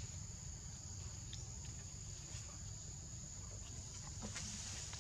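Insects droning steadily at a high pitch over a low rumble, with a few faint scattered clicks.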